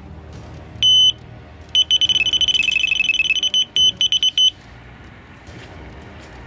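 Electronic carp bite alarm bleeping: one beep, then a fast unbroken run of beeps and a few last separate ones before it stops. The rapid bleeping signals a run, a fish pulling line off the rod.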